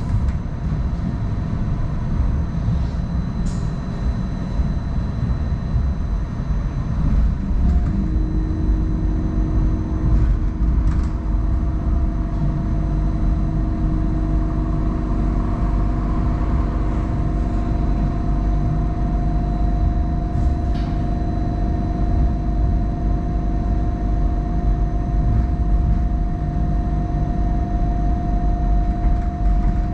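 Hong Kong Light Rail Phase I train running, heard on board: a steady low rumble of wheels on track, with steady electrical hums coming in about eight seconds in and holding.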